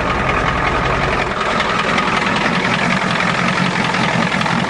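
Ford diesel truck engine running steadily just after its first unassisted cold start, its glow plug system freshly repaired.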